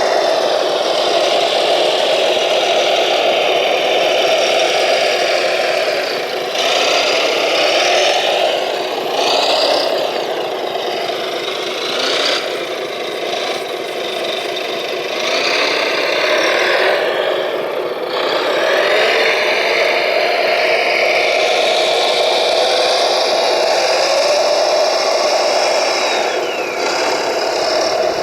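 Radio-controlled model heavy vehicles working: electric motors and gearboxes whirring steadily, their pitch rising and falling with speed, with rattling from the models' mechanisms.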